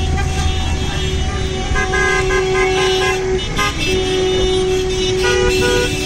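Several car horns honking in long, overlapping blasts at different pitches: a wedding convoy of cars honking in celebration.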